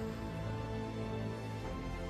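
Background music with sustained, steady notes.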